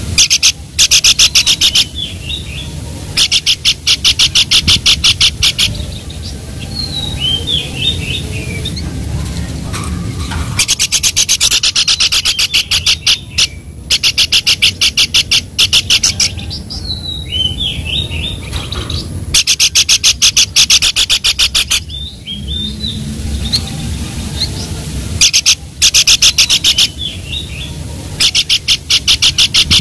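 Babbler (pelanduk) calling: bursts of fast, evenly repeated high chattering notes, each lasting a second or two, alternating with short falling whistled notes.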